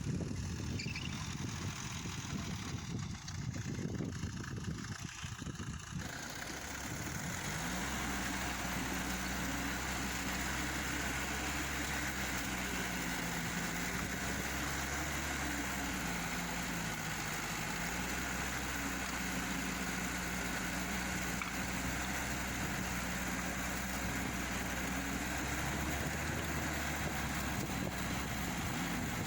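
Engine of a homemade rotary tiller: about six seconds of uneven low rumbling, then a steady running note that wavers slightly in pitch as the load changes.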